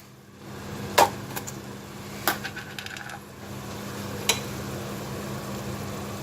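Sharp metallic clinks of a utensil against a cooking pot: three louder strikes with a few lighter taps between, over a steady low hum.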